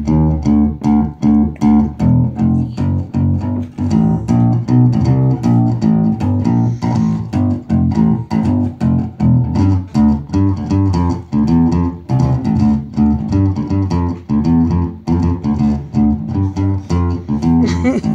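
Acoustic bass guitar played solo in an instrumental break: a steady run of quick plucked notes, about four or five a second.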